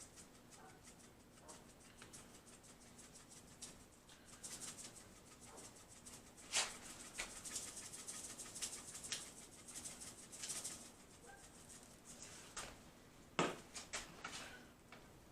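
Dry pork rub being shaken from a shaker onto raw pork butts, in short light rattling, sprinkling bursts. Two sharper knocks stand out, about six and a half seconds in and near the end.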